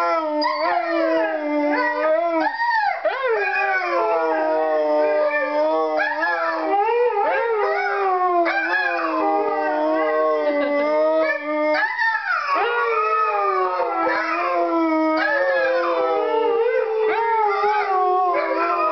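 An Alaskan Malamute and a Siberian Husky howling together in long, overlapping howls. One voice holds a steady low note for the first half while the other wavers and slides in pitch above it; near the end a howl falls slowly in pitch.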